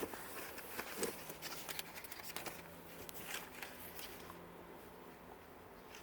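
A dress being handled: faint fabric rustling with a few light clicks, mostly in the first few seconds, as it is turned over to find its size label.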